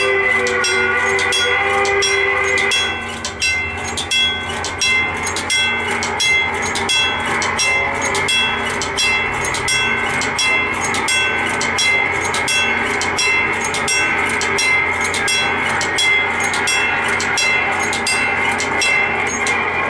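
Railroad grade-crossing bell ringing with even strokes about twice a second as a freight train passes, over a steady rumble. A locomotive horn chord trails off in the first few seconds.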